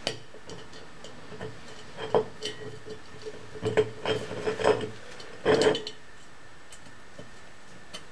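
Scattered small metal clicks and scrapes of a steel bicycle brake cable and a hand tool against an aluminium pot as the cable is tightened into place as a pot handle. The loudest clicks come a little past five seconds in.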